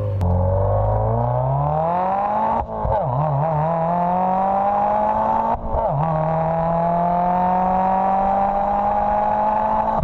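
Subaru WRX turbocharged 2.0-litre flat-four running through an Invidia Q300 cat-back exhaust, accelerating in gear. The pitch climbs, drops at an upshift about two and a half seconds in, climbs again, drops at a second upshift just before six seconds, then pulls on with a slowly rising pitch.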